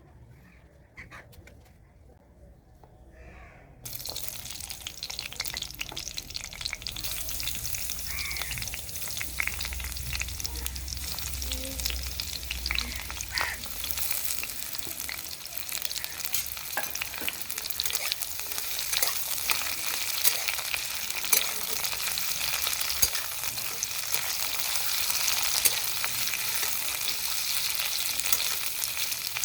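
Food sizzling in hot cooking oil in a pan, the sizzle starting suddenly about four seconds in as it goes into the oil, with scattered clicks of a spatula stirring against the pan.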